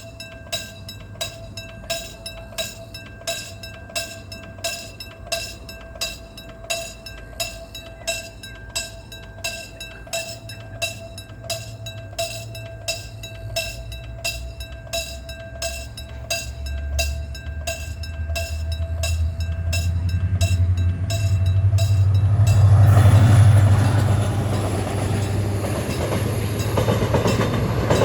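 Railroad level-crossing warning bell ringing steadily, about one and a half strokes a second, as a Mugunghwa passenger train approaches with a low rumble that grows louder. About three quarters through, the train reaches the crossing and its loud wheel and engine noise drowns out the bell.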